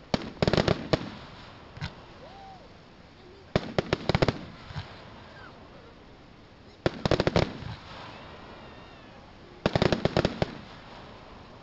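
Fireworks bursting in four volleys about three seconds apart, each a quick string of sharp cracks.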